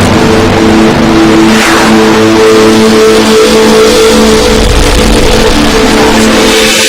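Loud channel-intro sound effect: a dense, steady rush of noise under a few held low tones, with a brief whoosh about a second and a half in.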